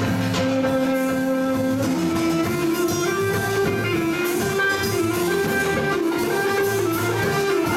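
Live instrumental band music: electric guitar, reeds, electric bass and drums in a belly-dance groove. A melody holds one long note for about two seconds, then moves on over a steady, repeating bass line.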